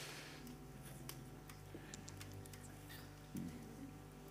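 Quiet room tone: a steady low hum with scattered faint ticks and clicks.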